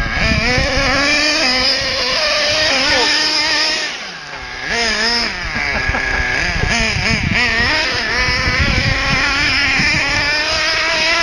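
Small nitro engine of a radio-controlled car revving up and down as the car drives and spins on dirt, its pitch rising and falling constantly, easing off briefly about four seconds in.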